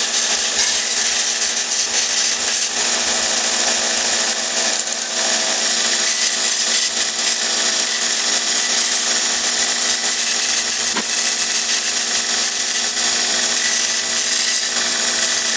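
A 2x48 belt grinder running steadily while a thin wooden wand is pressed against the moving abrasive belt and sanded to shape.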